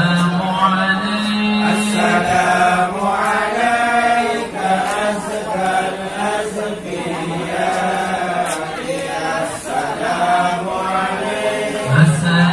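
A group of men chanting devotional verses together in hadrah style, voices moving in a slow melodic line, with a held low note near the end.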